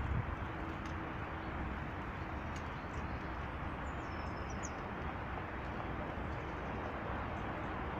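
Steady rushing background noise, with a few faint high bird chirps about four to five seconds in and a brief low thump at the very start.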